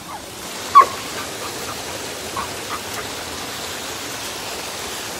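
Steady rushing of a small waterfall, with a dog's short sharp yip about a second in and a few fainter yips over the next two seconds.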